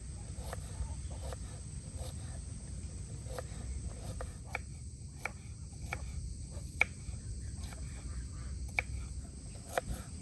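A run of sharp, irregular clicks and taps, the loudest about seven seconds in, over a steady high chirring of insects and a low outdoor rumble.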